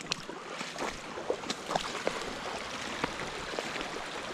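Shallow creek water running steadily, with many small splashes and trickles all through it.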